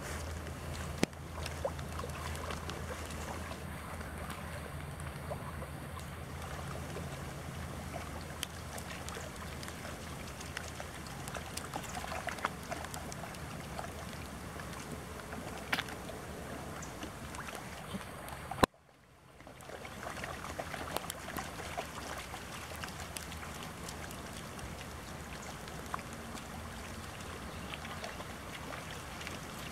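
Rain falling on a shallow pond and water splashing as Labrador puppies wade and paddle through it, with wind rumbling on the microphone. The sound cuts out suddenly for about a second roughly two-thirds of the way through.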